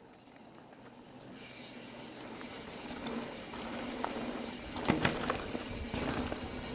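Mountain bike rolling off along a dirt trail, tyre and wind noise building steadily as it picks up speed, with a few sharp knocks and rattles about five seconds in.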